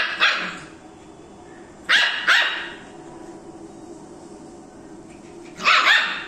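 Rottweiler puppy barking at a moving broom in play. Three pairs of short, high-pitched barks: one pair at the start, one about two seconds in, one near the end.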